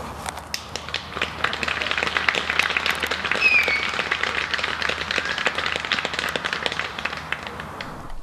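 Crowd of spectators clapping, swelling about a second in and dying away near the end.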